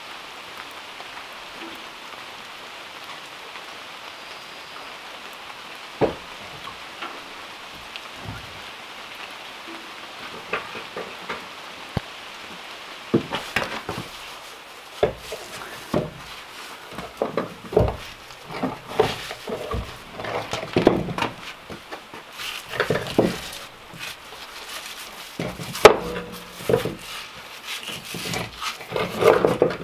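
Steady rain hiss for roughly the first half, with an occasional knock. Then large fieldstones are set down and knocked against one another and a hard floor, giving irregular clunks and scrapes, busiest and loudest in the second half.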